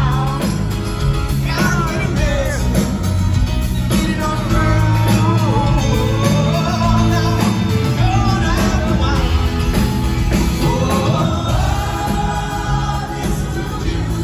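Live pop-rock band playing through a concert PA, with a lead vocal sung over acoustic and electric guitars, keyboard and drums, heard from among the audience.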